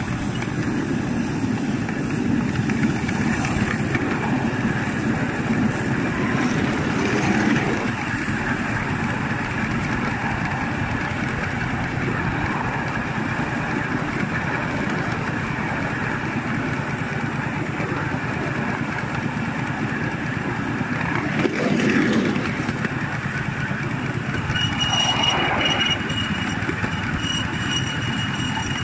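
Miniature live steam locomotive running along its track, heard from the driver's seat: a steady running noise of the engine and its wheels on the rails, swelling louder a couple of times. A thin steady high tone sounds for a few seconds near the end.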